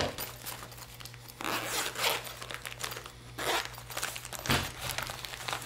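A small zippered fabric first aid pouch being unzipped and opened by hand, with rustling and crinkling of the plastic-wrapped supplies inside. The longest zipping noise comes about a second and a half in, followed by a shorter scrape and a knock.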